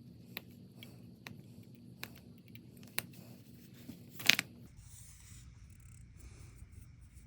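Sharp little clicks of photo-etch parts being snipped off their fret, a few spread out, with one louder snip about four seconds in.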